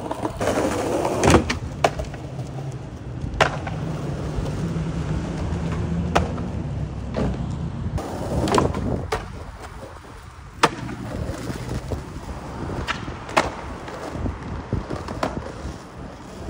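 Skateboard wheels rolling on rough asphalt, with several sharp clacks of the board popping and landing.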